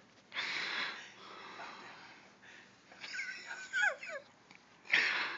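A person's wheezing breaths: a loud hissing breath about half a second in and another near the end, with high, squeaky sliding vocal sounds in between.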